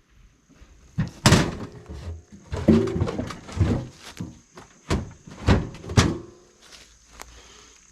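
Hickory firewood pieces knocking and thunking against each other as they are handled, about seven separate knocks over a few seconds, some with a short woody ring. A steady high insect trill runs underneath.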